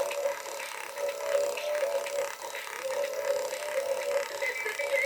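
Small electric motor and plastic gear train of a Grave Raver dancing figure's top (arm) mechanism running, with a steady hum and a dense rapid ticking that is really loud: the sign of a badly worn gear.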